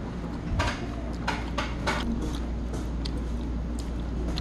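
Scattered taps and clicks of wooden chopsticks against plates and sauce dishes at a meal, irregular and a few per second at most. Under them runs a steady low hum.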